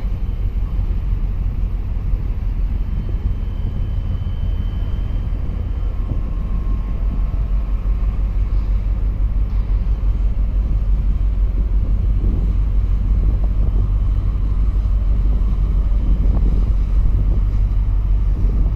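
Steady deep engine rumble of ships on the water, growing a little louder toward the end.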